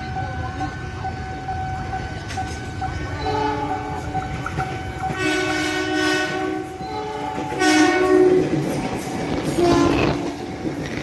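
Train horns sounding in four separate blasts over the steady rumble and wheel clatter of an electric commuter train passing over a level crossing. The loudest blast comes about two-thirds of the way in. A steady high tone rings in the first few seconds.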